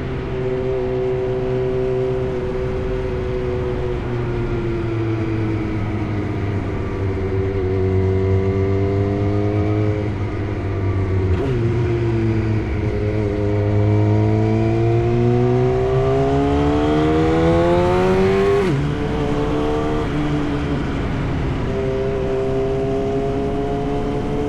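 Yamaha R1 inline-four motorcycle engine through an SC-Project exhaust, running under way. The revs waver, break sharply about halfway through, climb steadily for several seconds, then drop abruptly before settling to a steady lower note.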